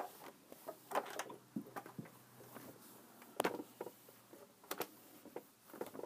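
A few scattered light clicks and taps, the sound of objects being handled and set down, over a faint steady hum.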